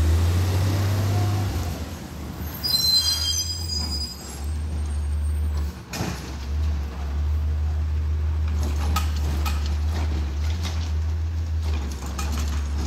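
Autocar ACX garbage truck with a Rapid Rail automated side-loader working down the street: a steady low engine rumble, a brief high squeal or air hiss about two and a half seconds in, a sharp knock around six seconds, and light clanks later on.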